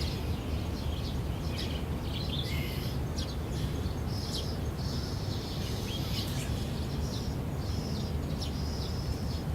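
Birds chirping and whistling, a string of short calls and a few longer held notes, over a steady low rumble of background noise.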